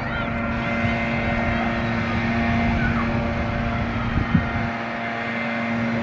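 A motor running steadily, a low rumble under a constant hum, with a brief knock a little past four seconds in.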